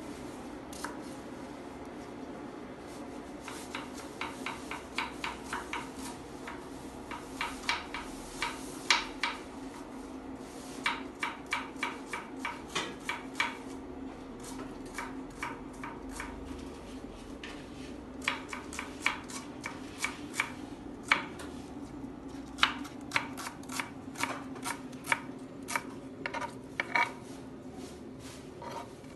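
Kitchen knife chopping red onion on a wooden cutting board: runs of quick blade taps, about four a second, broken by short pauses. A steady low hum runs underneath.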